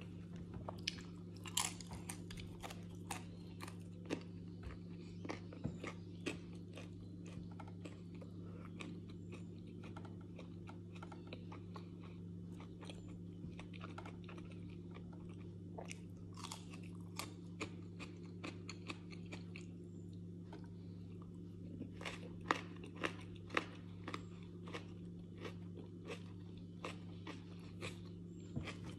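Close-up chewing and crunching of crisp flatbread, a scatter of sharp crunches that bunch up in the first few seconds and again in the last few, over a steady low hum.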